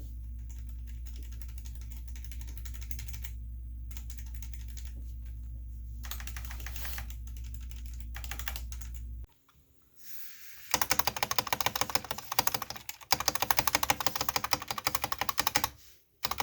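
Typing on an SK61 mechanical keyboard: a steady low hum with fainter key presses at first, then the hum stops and a fast, dense run of loud key clicks follows in the second half.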